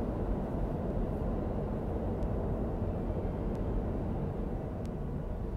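New York City subway train rumbling in the tunnel, a steady low rumble that slowly fades as the train draws away, with a few faint clicks.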